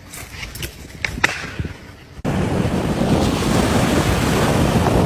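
A few faint knocks, then about two seconds in a sudden jump to a loud, steady rushing noise.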